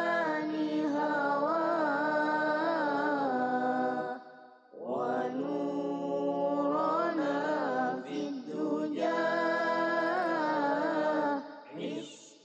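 Boys reciting Qur'an verses into microphones in the melodic tilawah (qira'at) style: long held notes with ornamented turns, with a breath pause about four and a half seconds in and another near the end.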